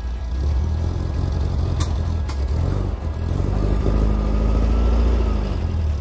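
A motor vehicle engine accelerating, its pitch rising, dropping briefly about halfway through, then rising again. There are two sharp clicks about half a second apart a couple of seconds in.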